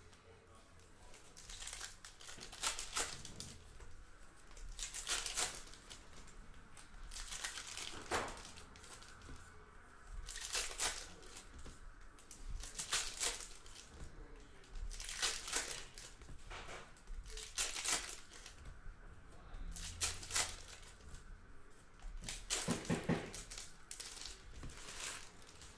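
Trading card pack wrappers being torn open and crinkled by hand, pack after pack: short crackling rustles every two to three seconds.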